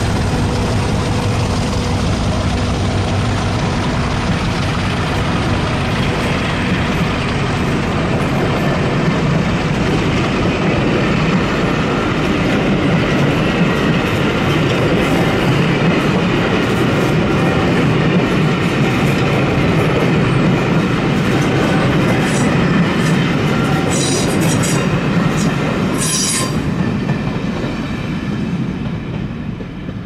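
A train hauled by a pair of Class 50 diesel locomotives with English Electric 16-cylinder engines passes. The engines' steady note is heard for the first several seconds, then the coaches roll by with wheel clatter. Brief high wheel squeals come late on before the sound fades away.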